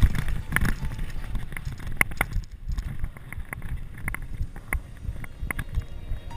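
Downhill mountain bike descending a dirt trail at speed: tyres rumbling over the ground, with the chain and bike parts clattering in sharp rattles, and wind buffeting the microphone.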